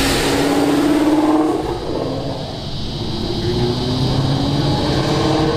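Car engines accelerating past: one engine note climbs slightly and cuts off about a second and a half in. From about halfway a second engine revs up, rising steadily in pitch.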